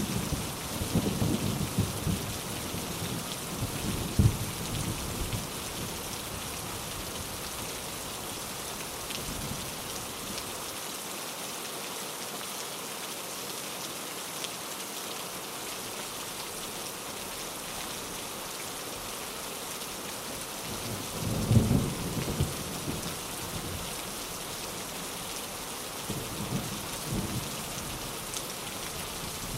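Steady heavy rain with a hiss of falling drops, and rolls of thunder rumbling low in the first few seconds, again about two-thirds through and faintly near the end.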